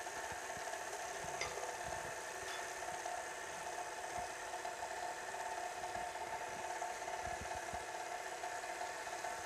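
KitchenAid Artisan stand mixer running at a steady speed, its motor giving an even whine, with the flat beater turning through creamed butter and brown sugar in a glass bowl.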